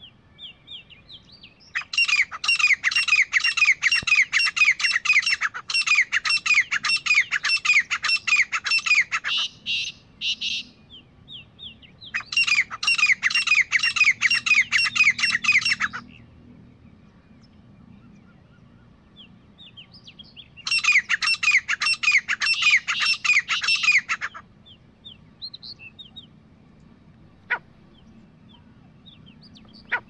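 A pair of grey francolins calling: three loud bouts of rapid, repeated harsh notes, each lasting a few seconds, with quieter short calls between the bouts.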